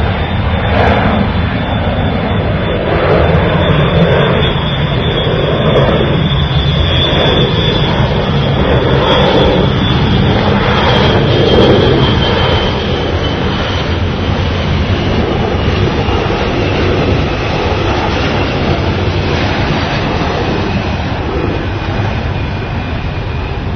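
A loud, steady engine roar with a deep rumble underneath and a thin high whine that slowly falls in pitch. It plays as a sound-effect clip that starts and stops abruptly.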